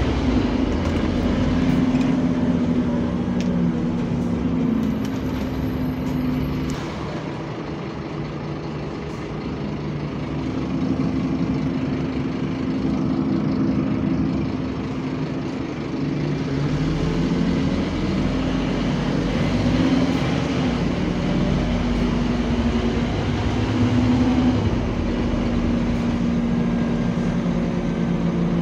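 Scania bus's diesel engine and cooling fan running, heard from inside the passenger saloon: a steady hum whose pitch rises and falls with engine speed. It eases off about a quarter of the way through and builds up again later.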